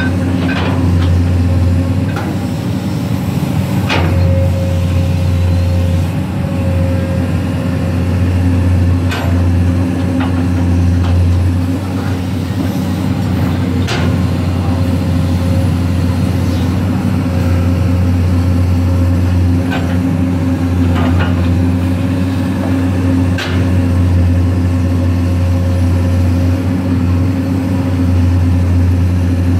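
Komatsu hydraulic excavator's diesel engine running steadily under load while it digs and heaps wet mud. Sharp knocks from the bucket and arm are heard every few seconds.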